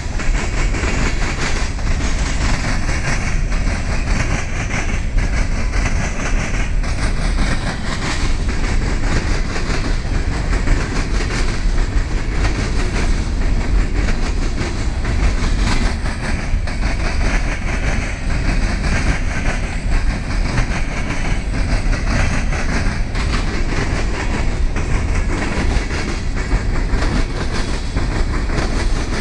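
Freight train of coal hopper cars rolling past, a steady loud rumble with the wheels clattering over the rails.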